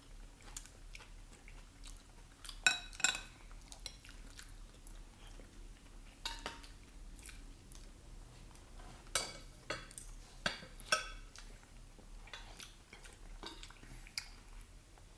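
Cutlery clinking against plates and bowls during a meal, a few sharp clinks at a time, with quiet chewing between them.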